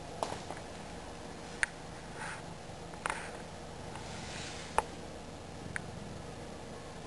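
Steady low background hum with a few scattered small sharp clicks and taps; the loudest comes just under five seconds in.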